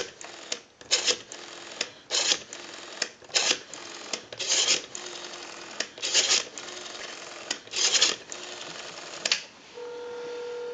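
Rotary dial of a brass-bodied Onyx Baroque Countess telephone being dialed seven times, each pull-off and spin back a short whirring, clicking rattle. Near the end a steady telephone ringing tone comes on over the line amplifier as the call goes through.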